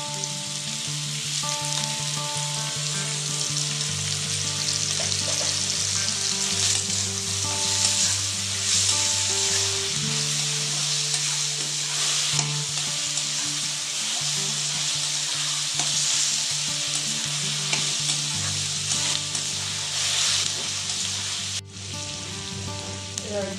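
Onions, carrots and capsicum sizzling in hot oil in an aluminium kadai while a metal spatula stirs and scrapes them, the sizzle swelling with each stroke. The sound breaks off sharply for a moment near the end.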